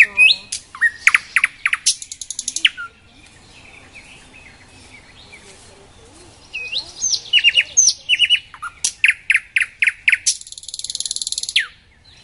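Nightingale singing: two song phrases of clear whistles and rapidly repeated notes, a few seconds apart, the second ending in a fast trill.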